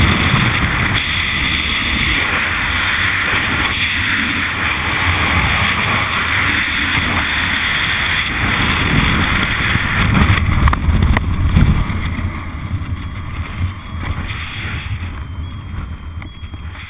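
Freefall wind rushing and buffeting over a helmet-mounted camera's microphone. The noise eases over the last few seconds as the parachute opens and the fall slows.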